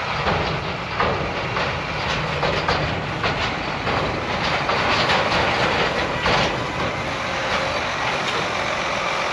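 Heavy farm machinery running, with a steady rattling clatter of irregular knocks and clicks over a running engine.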